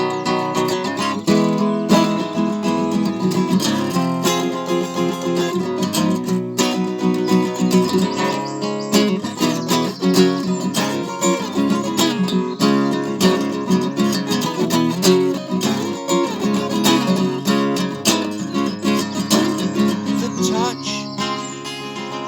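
Acoustic guitar playing an instrumental passage of a folk song, chords picked and strummed without singing.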